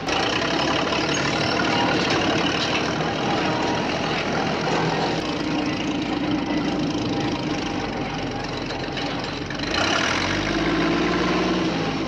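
Heavy diesel-engine sound running steadily, as from the sound module of a Huina RC toy bulldozer while it drags a pole, with a brief change in the engine note about ten seconds in.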